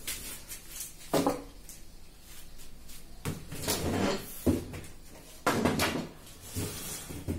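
A paintbrush stroking primer onto hanging fabric: a series of rough, uneven brushing swishes, with a sharp knock about a second in.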